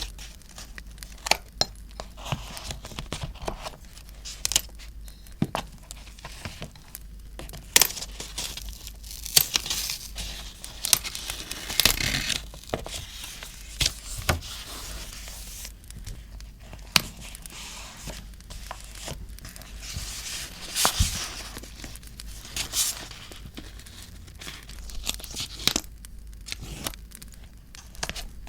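Paper being handled and torn for scrapbooking: rustling, tearing and crinkling, with scattered sharp taps and clicks.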